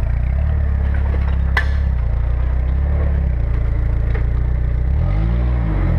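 Off-road vehicle engine running steadily at low revs, with a sharp clank about a second and a half in; near the end the engine revs up and down.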